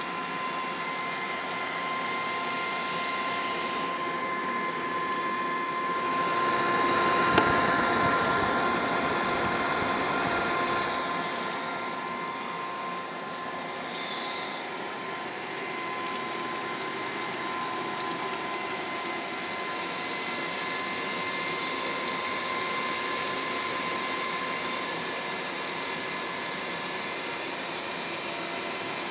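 A running computer's cooling fans whirring steadily with several steady tones mixed in, swelling louder for a few seconds about a quarter of the way in, then settling back.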